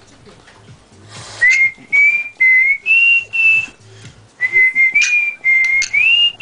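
A whistled tune of about ten clear, steady notes in two phrases, each note stepping or gliding slightly up between pitches.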